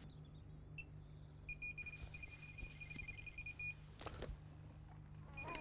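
Electronic carp bite alarm sounding a single high beep, then a fast, unbroken string of beeps for about two seconds, then beeping again near the end: a run, a hooked carp taking line off the rod. A knock comes about four seconds in.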